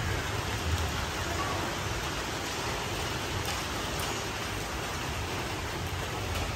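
Steady rain falling on wet tiled paving and foliage: a continuous even hiss, with a low rumble underneath.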